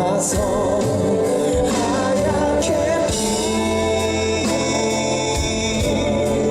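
Live band music with a male lead vocalist singing in long notes with wide vibrato, over a steady bass line and drum and cymbal hits.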